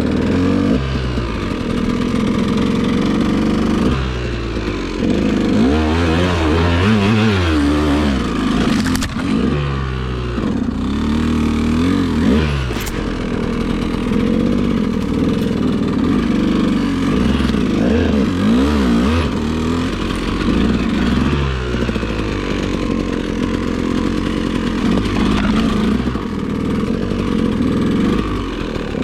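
KTM 200 two-stroke single-cylinder dirt bike engine working under load on an uphill climb, the throttle opened and eased off again and again so the pitch keeps rising and falling.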